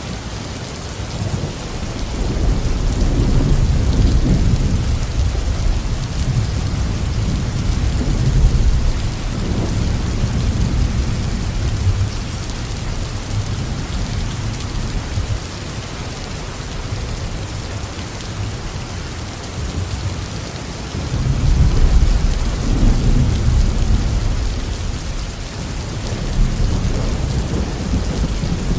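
Heavy rain falling steadily, with thunder rolling under it. One long low rumble builds about two seconds in and fades some ten seconds later, a second swells up about two-thirds of the way through, and a smaller one follows near the end.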